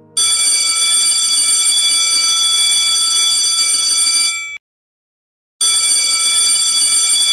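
Electric school bell ringing steadily and loudly for about four seconds, cutting off abruptly, then ringing again after about a second's pause.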